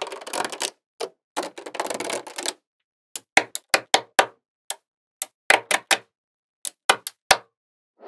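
Small magnetic balls clicking and rattling against one another as sheets and strips of them are pulled apart and pressed into place. The first couple of seconds are a dense clattering rattle, then come separate sharp clicks, a few a second.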